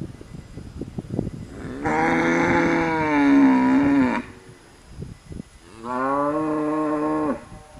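A cow mooing twice: a long call of about two seconds, then a shorter one of about a second and a half.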